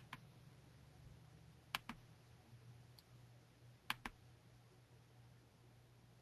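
Computer mouse clicks, three sharp pairs about two seconds apart, each pair like a button press and release, with one fainter click between. Otherwise near silence with a faint steady low hum.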